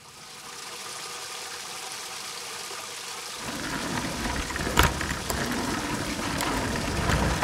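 Water gushing from a tap in a steady rushing hiss that swells at the start. About three and a half seconds in, a deep rumble joins it as the water-powered bathtub cart starts to roll, with a sharp crack a little later.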